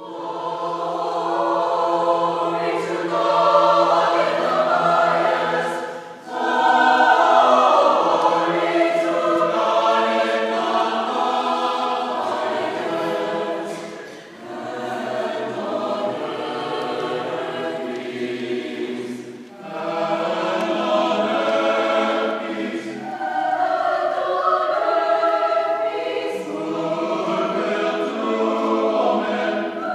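Church choir singing a cappella in several parts, sustained chords entering from silence, with short breaks between phrases.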